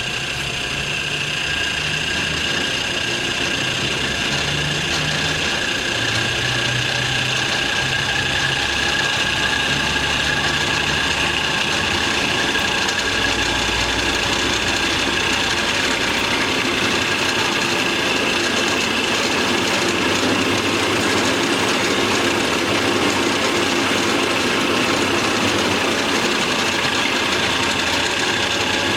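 Kalamazoo 13AW horizontal band saw running: a steady mechanical drone with a high, constant whine over it.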